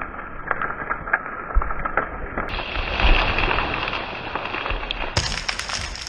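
A felled spruce falling and crashing down onto a snowy slope: wood and branches cracking and snapping in quick succession, loudest about three seconds in as the tree hits the ground.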